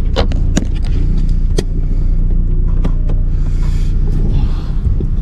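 Car driving off: a steady low engine and road rumble, with sharp clicks and knocks scattered through it.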